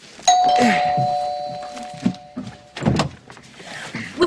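A two-tone door chime rings, a higher ding and then a lower dong, and fades out over about two seconds. About three seconds in comes a sharp thump as the front door is opened.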